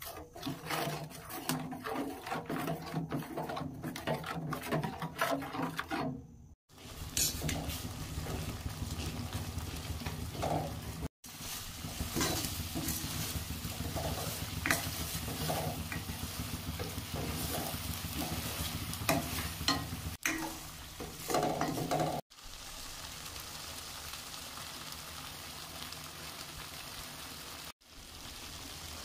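Ginger-garlic-onion paste sizzling in hot oil in a stainless steel pan while a steel spoon stirs and scrapes the pan. The sound stops and restarts abruptly a few times, and over the last several seconds it is a steadier sizzle with little scraping.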